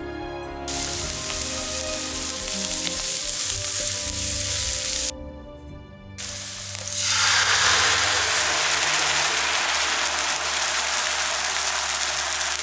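Chopped shallots and garlic sizzling in a frying pan. The sizzle starts under a second in, breaks off about five seconds in, and returns louder a second later, with soft background music underneath.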